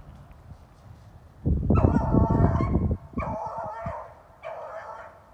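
A beagle baying while it trails a rabbit: about three long, drawn-out bays, the first the longest and loudest. A heavy low rumble lies under the first bay.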